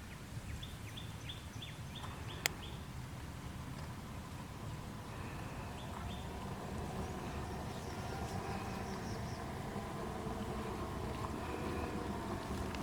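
Nature ambience: a steady low rumble with small birds chirping. A quick run of short falling chirps comes about a second in, with more chirps later, and there is one sharp click midway through the run.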